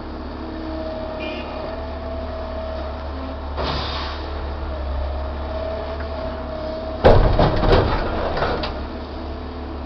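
Link-Belt track hoe excavator running on top of a steel coal car, its engine and hydraulics giving a steady hum with a faint whine. About seven seconds in comes a loud clattering run of knocks and scrapes as the bucket digs into the coal in the car.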